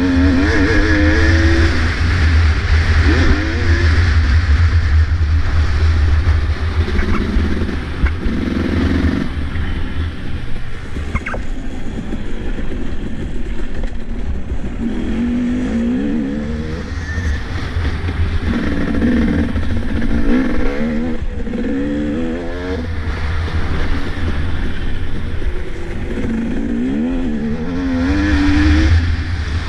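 Two-stroke motocross bike's engine revving hard and falling off over and over, the pitch climbing in repeated rising sweeps as the rider accelerates out of turns and over jumps. Heavy wind buffeting on the helmet-mounted camera's microphone runs underneath.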